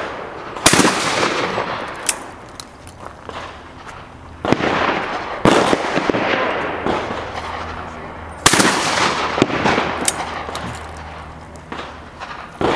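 12-gauge shotgun shots with birdshot at clay targets: four loud reports, two of them about a second apart near the middle, each followed by a long fading echo. Fainter sharp cracks of other shots fall between them.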